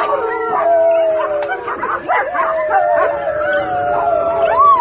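A pack of German Shepherd dogs howling in chorus: several long howls at different pitches overlap and slowly fall, with short yips and barks breaking in.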